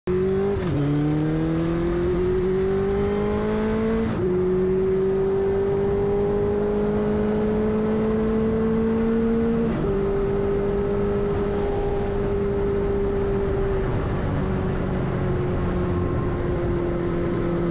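Benelli TNT600i motorcycle's inline-four engine and exhaust under way, pulling up through the gears. The note climbs steadily and drops sharply with each upshift, about a second in, about four seconds in and near ten seconds, then holds a steady cruising note.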